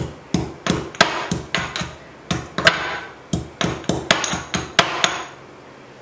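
Pestle pounding fresh ginger in a small ceramic mortar: a quick, uneven run of knocks, about three to four a second, with a short ring on each. It stops about five seconds in.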